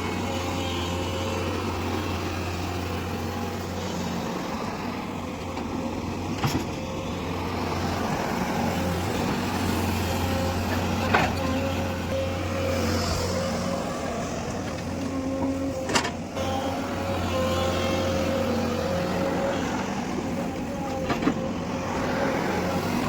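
Sany 210 excavator running steadily under work, its diesel engine humming with a steady whine on top. Four sharp knocks come about five seconds apart.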